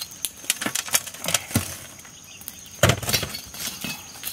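Burning charcoal pieces clinking and scraping on a metal pot lid as they are spread over it, then a heavy knock about three seconds in as a stone is set down on the lid to weigh it for dum cooking.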